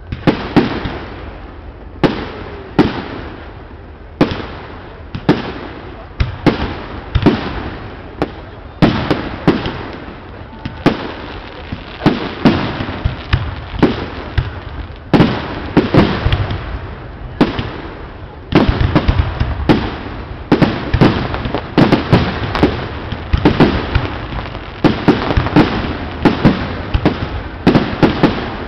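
Aerial firework shells bursting in quick succession, sharp bangs one after another over a continuous rumble and crackle. From about two-thirds of the way through, the bangs come thicker and the rumble grows louder.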